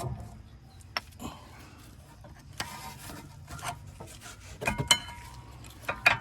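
Rear disc brake pads being worked out of the caliper bracket: scattered metallic clicks and scrapes, with a few sharper clinks that ring briefly near the end.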